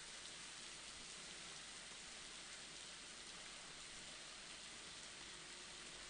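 Faint, steady hiss of a thin waterfall splashing down over mossy rock.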